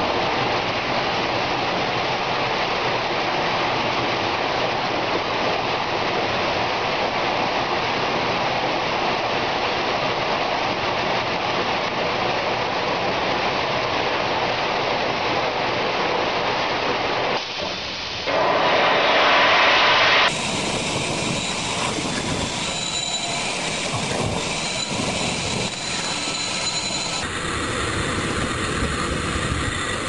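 IVAC industrial vacuum system running steadily while pumping mine sump sludge, a loud even rushing noise. The noise dips briefly about two-thirds of the way through and comes back louder. Soon after, it changes abruptly to a different machine-like noise, and changes again near the end.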